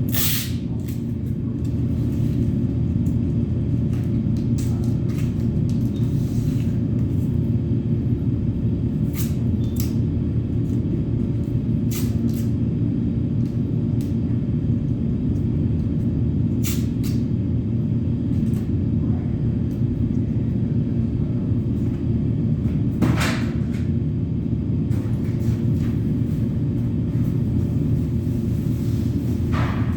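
Steady low mechanical rumble at an even level, with a few scattered light clicks and knocks, the loudest about 23 seconds in.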